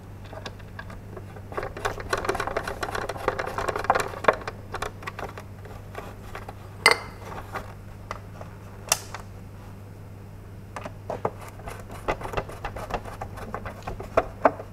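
Hand screwdriver driving screws into the plastic chassis of a vintage toy vehicle. There are two stretches of rapid creaking ticks as the screws turn, and two sharp clicks in the middle.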